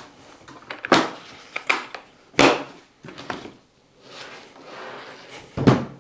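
Handling clatter of hard parts: about five sharp knocks and clunks spread out, with a soft scraping rustle between them about four seconds in.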